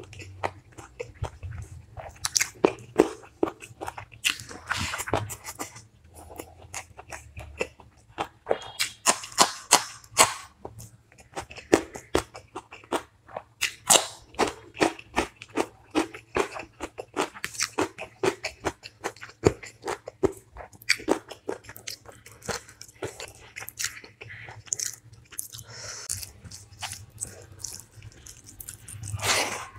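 Close-miked eating of chicken curry with rice, dal, green chili and cucumber: chewing and biting, with many quick, sharp mouth noises at an uneven pace.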